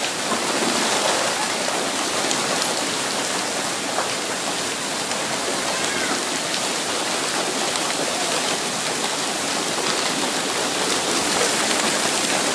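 Hail and heavy rain pelting down on the yard and house, a dense, steady hiss.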